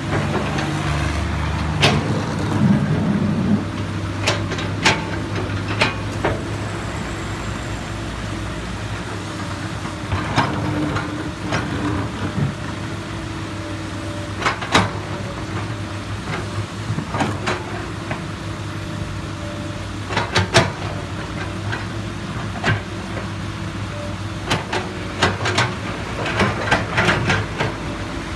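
Komatsu PC200 hydraulic excavator's diesel engine running steadily, with scattered sharp clanks and knocks, which come more often near the end.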